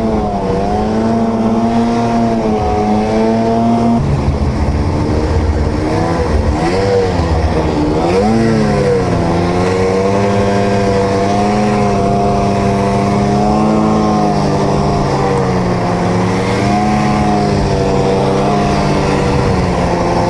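Snowmobile engine running under load while riding through snow. Its pitch wavers with the throttle, dropping and climbing back a couple of times near the middle, then holding fairly steady.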